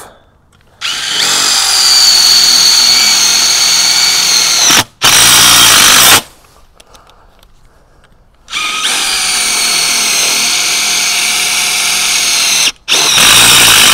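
Cordless power driver driving two screws through the joint of a metal greenhouse bow tube. Each screw takes a steady motor whine for about four seconds, then about a second of harsher, louder running, with a pause of about two seconds between the two screws.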